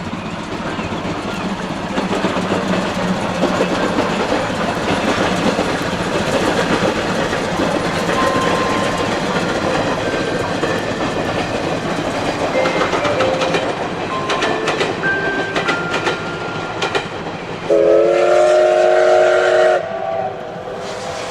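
Steam-hauled passenger train running along the track, with rail-joint clicks and a few brief squealing tones. Near the end the steam locomotive's whistle blows once, loudly, for about two seconds: several tones sounding together.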